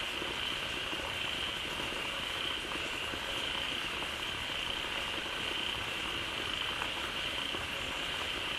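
A dense chorus of many frogs calling at once: a continuous churning din with a steady high drone running through it.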